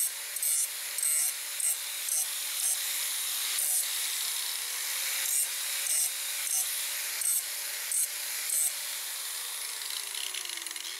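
An electric angle grinder's abrasive wheel grinds the end of a piece of ribbed steel rebar: a steady harsh grinding hiss with louder scrapes about twice a second. The motor's pitch falls near the end.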